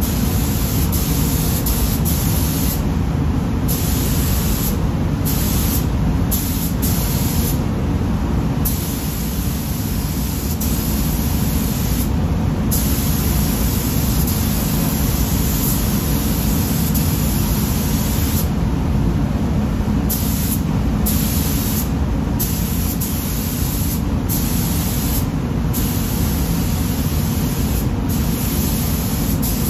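Paint spray gun hissing in repeated bursts of a few seconds each, cutting off briefly each time the trigger is released, over a steady low rumble.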